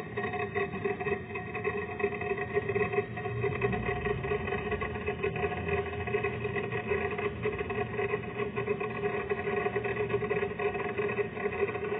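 Refrigerant gas hissing as it expands through the refrigerator's capillary line into the evaporator during charging, over the steady hum of the running compressor. The even, unbroken sound is the sign of refrigerant flowing through the repaired line.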